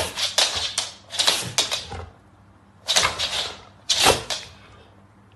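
A small hand-held pump spray bottle squirted repeatedly at a dog's face: four clusters of quick, sharp hissing squirts, with short pauses between them.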